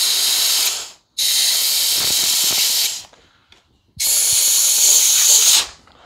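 Compressed-air blow gun hissing in three long blasts into a mower's fuel tank filler, with a hand cupped around the nozzle to pressurize the tank and force fuel out through a stopped-up fuel line.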